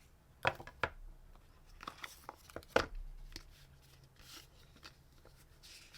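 An AirPods 3 retail box being opened and handled: a few sharp clicks and knocks of the cardboard and lid, with short papery rustles and tearing.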